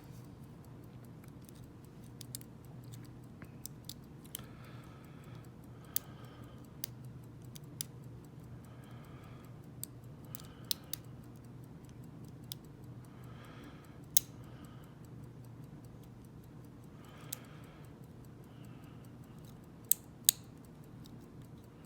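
Lock pick and tension wrench working the pins of a small Guard Security padlock: sparse small metallic clicks and short scraping rasps, with a few sharper clicks near the end.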